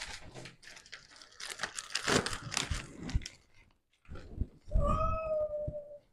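An angry, aggressive neutered cat gives one drawn-out yowl lasting about a second near the end, while its wound is being handled. Before the yowl there are a few seconds of rough, hiss-like noise.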